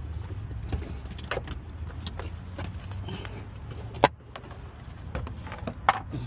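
Plastic door-sill trim panel of a minivan being pulled off by hand: scattered light clicks and rattles of the panel and its retaining clips, with a sharp snap about four seconds in and another near the end as clips let go.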